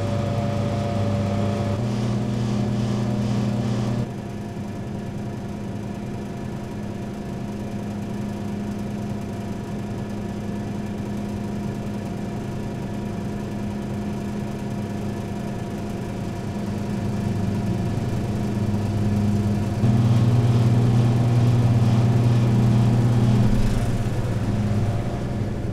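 Refrigerated drink vending machines humming: a steady low electrical hum with a faint whir of cooling machinery. It drops abruptly about four seconds in, then grows louder again about twenty seconds in.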